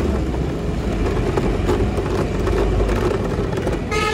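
Steady ride noise from a moving motor scooter: its engine running under wind and road rumble. A vehicle horn toots near the end.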